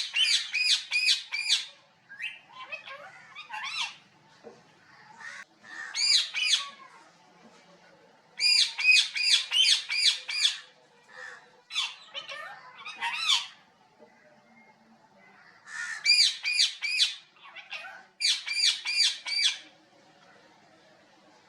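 Parrot squawking in runs of harsh, rapidly repeated calls, about four or five a second, with short pauses and a few scattered single calls between the runs.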